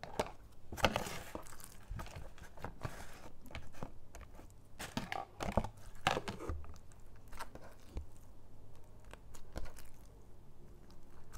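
Foam-bead slime being squeezed and kneaded by hand, the foam beads crunching and crackling in irregular bursts.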